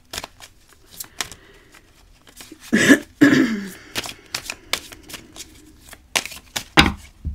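A deck of oracle cards being shuffled by hand: a run of quick papery card clicks and slaps. A short wordless vocal sound comes about three seconds in.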